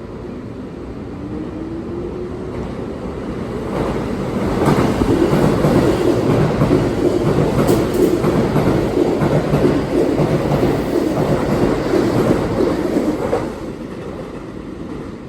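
Keihan 3000 series electric train passing through a station at speed without stopping. The sound builds as it approaches, then comes a loud run of wheel and rail clatter for about nine seconds as the cars go by, and it drops off sharply near the end as the last car clears.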